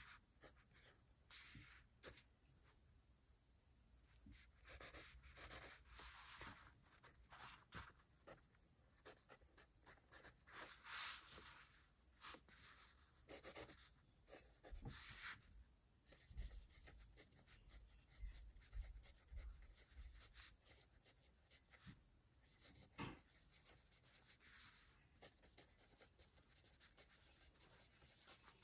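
Faint handwriting on paper: short strokes in irregular spurts, with a few light clicks between them.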